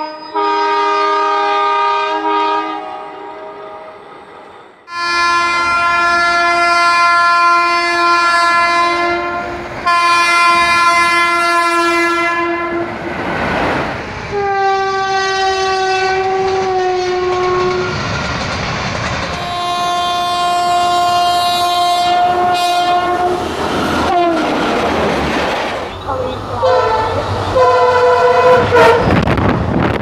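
Indian Railways locomotive air horns: a run of separate long horn blasts from different diesel and electric locomotives, each a chord of steady tones. Between them comes the rumble and clickety-clack of a passing train. Two of the horns slide down in pitch near their ends.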